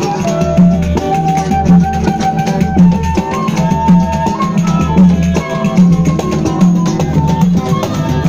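Live band playing an instrumental passage: a wooden fife (pífano) carries a melody of held notes over guitar, drums and a rattle, with a steady low drum beat underneath.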